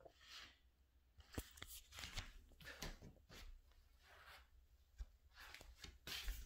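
Near silence with faint, scattered rustling and a few light clicks, like things being handled close to the microphone.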